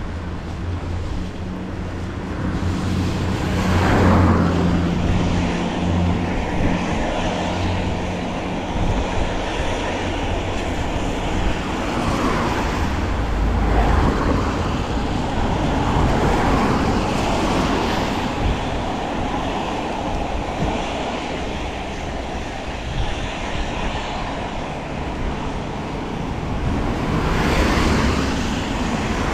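Road traffic passing on a wet road, several vehicles swelling up and fading away one after another over a steady rushing hiss, with a low engine hum in the first several seconds.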